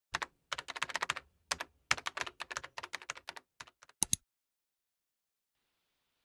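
Computer keyboard typing: a quick, irregular run of key clicks in a few bursts, stopping a little after four seconds in.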